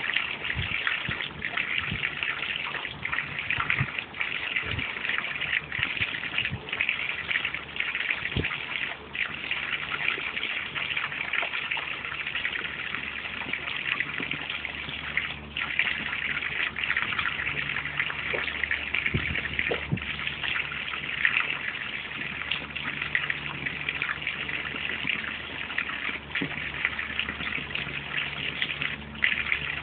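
A jet of water from a garden hose spraying out and splashing into a pond: a steady rushing splash, broken briefly every few seconds.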